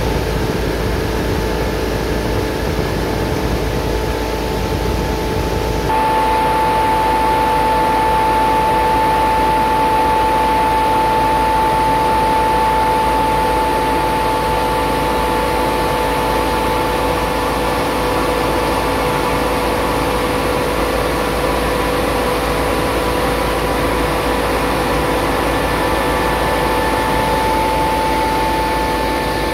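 East Force EF 2790-BC centrifugal wet shell transport fan and its 40 HP two-pole three-phase motor running steadily at 3000 RPM: a loud, even rush of air and machinery with a constant high whine that becomes louder about six seconds in.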